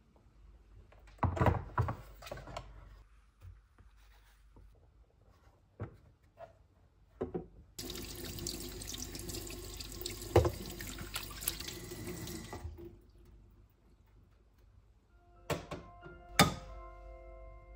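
Kitchen tap running into a stainless-steel sink while hands are washed under it, for about five seconds midway. Before it come a few sharp knocks and clatters. Near the end there are two more knocks, and soft music with a light, clock-like tone begins.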